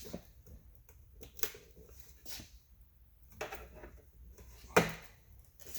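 Plastic side-mirror trim being worked loose with a plastic panel tool: a few scattered clicks and taps of plastic on plastic about a second apart, with a louder knock near the end.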